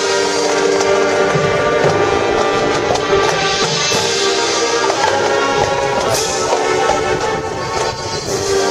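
A high school marching band plays loud, sustained brass chords over percussion, with a few sharp accents.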